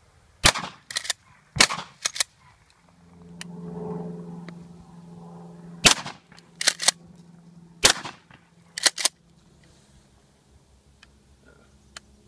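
Four blasts from a 12-gauge Remington 870 pump shotgun firing 00 buckshot, in two pairs about a second apart, the second pair about four seconds after the first. After each blast comes a quick double clack, the pump being racked back and forward.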